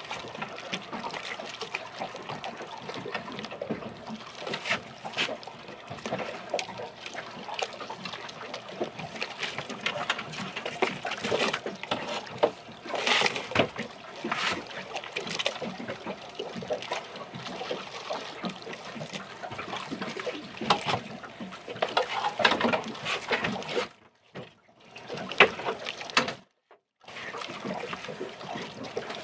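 Water lapping and trickling against a small boat's hull, with irregular splashes and small knocks. The sound cuts out briefly twice near the end.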